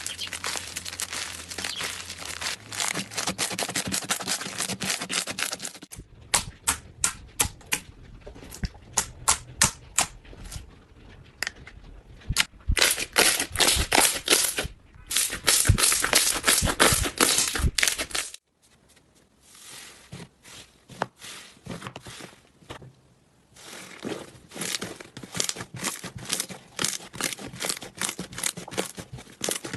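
Slime being squeezed and poked by hand, making crackling, clicking and popping sounds. The sound changes abruptly a few times, from a dense crackle to separate sharp pops and back.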